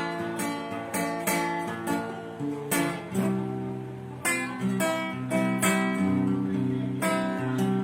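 Acoustic guitar strumming and picking chords as the instrumental intro of an Umbanda ponto for a preto velho.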